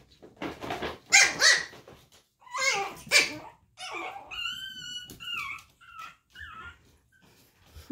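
Chihuahua barking several times in the first half, then whining in high, drawn-out whimpers from about halfway through.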